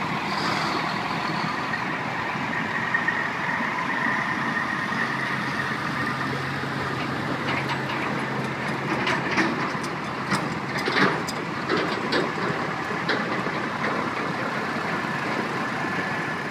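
Semi-trucks driving past at street speed: diesel engines running and tyre noise, steady throughout, with a run of sharp knocks and rattles in the second half.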